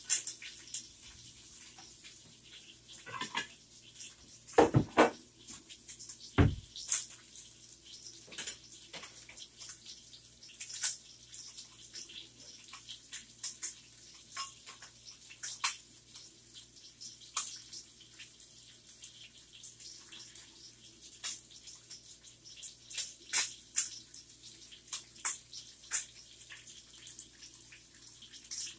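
Cooking clatter: a utensil tapping and scraping a frying pan and pots knocking on an electric stovetop, in irregular clicks with a few heavier knocks about five and six and a half seconds in.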